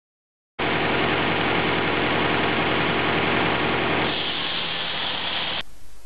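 Tractor-driven rack sawbench running, its circular blade cutting a Norway spruce log over the steady hum of the tractor engine. It starts abruptly after a moment of silence, turns higher and hissier about three and a half seconds in, and cuts off sharply just before the end.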